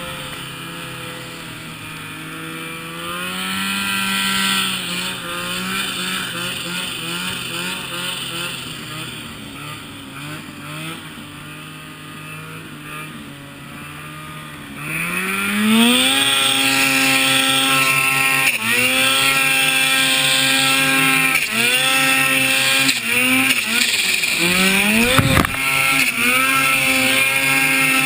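Turbocharged Ski-Doo XM snowmobile's two-stroke engine, heard from the rider's seat: running at part throttle with its pitch rising and falling, then about halfway through it opens up to full throttle and stays loud as the sled climbs, the revs dipping and climbing again several times.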